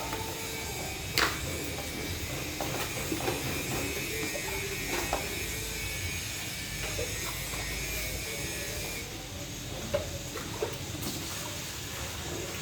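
Scattered sharp clicks and light knocks from hand tools and plastic parts being handled, over a steady background hiss; the loudest click comes about a second in.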